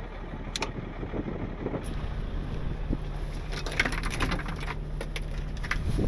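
Steady low hum of idling trucks. About two seconds in, a second steady hum joins it, and in the second half a run of short clicks and rattles from hands handling metal parts and hoses.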